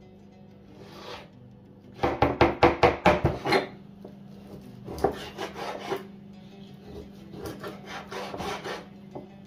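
Rhythmic rubbing, rasping strokes in quick runs of about five a second, from hands working ingredients during bread-making. The loudest run comes about two seconds in, with softer runs later.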